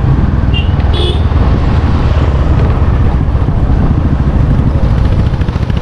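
Motorcycle riding along, its engine and road noise mixed with heavy wind buffeting on the microphone.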